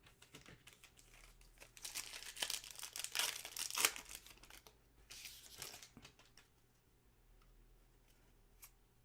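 A foil trading-card pack wrapper being torn open and crinkled, in two spells of rustling, the louder about two to four seconds in and a shorter one about five seconds in, with small clicks of cards being handled.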